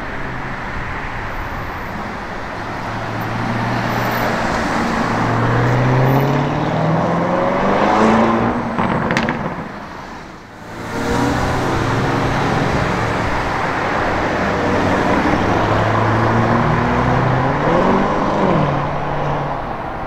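Lamborghini Urus twin-turbo V8 engines accelerating in two passes: the engine note climbs in pitch through its revs and fades away about ten seconds in, then a second Urus pulls away with its revs climbing again near the end.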